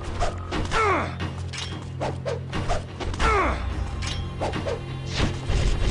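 Sword sound effects: a rapid series of metallic strikes and swishes whose ringing falls in pitch, the largest about a second in and about three seconds in, over a steady low drone.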